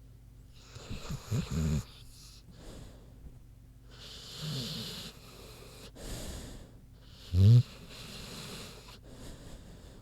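American Bulldog snoring in her sleep: a few breaths with a hiss of air, some carrying a short low snort. The loudest snort comes about seven and a half seconds in.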